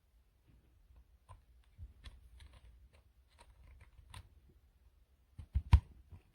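Small clicks, taps and rustles of objects being handled, with two louder knocks close together about five and a half seconds in.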